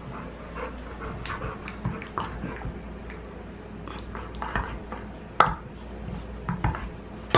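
A large pit bull chewing on a red spiky rubber squeaky toy: irregular clicks and gnawing sounds of teeth working the rubber, with one sharp click about five and a half seconds in.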